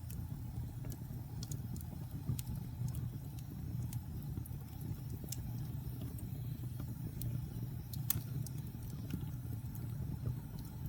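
Wood fire burning: a steady low rumble with sharp crackles and pops at irregular intervals, a louder pop about eight seconds in.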